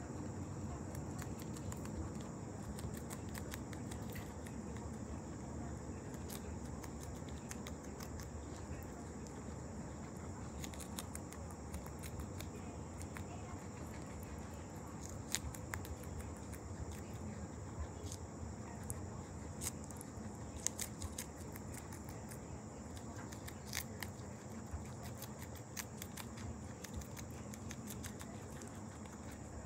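Guinea pig chewing lettuce: an irregular run of small crisp crunching clicks over a steady background hiss, with a few louder crunches in the second half.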